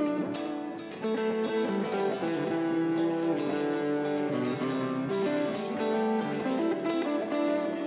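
Instrumental music without singing: a guitar played through effects, holding sustained, layered notes, with a brief drop in level about a second in.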